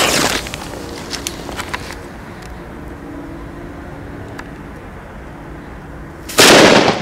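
The hiss of a Pirato match-head firecracker's friction head flaring dies away at the start. Then there are several seconds of fuse burn with a few faint ticks, and about six seconds in the firecracker explodes in one loud bang with a short echo.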